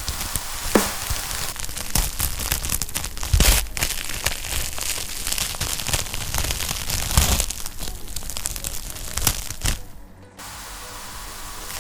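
Wood fire in a fireplace crackling, with a steady hiss and irregular sharp pops. About ten seconds in it briefly drops out and comes back as a softer, steadier hiss.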